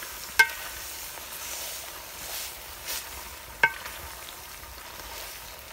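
Wooden spoon stirring raw minced sheep fat in a metal pot over a wood fire, with a faint steady sizzle as the fat starts to render. The spoon knocks twice against the pot, each knock ringing briefly.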